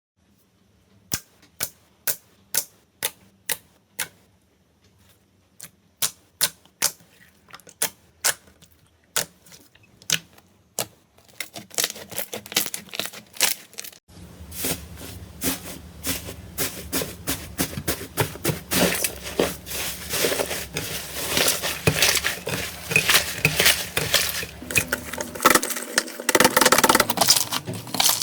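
Slime being handled: first a run of sharp clicks about two a second, then from about eleven seconds in a dense crackling and popping that grows louder.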